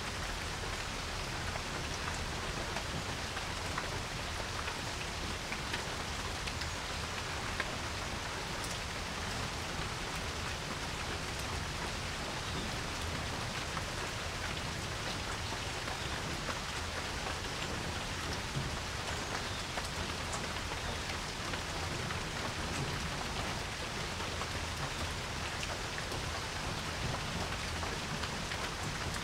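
Steady rain falling on a porch, an even hiss of drops with scattered individual drips ticking through it.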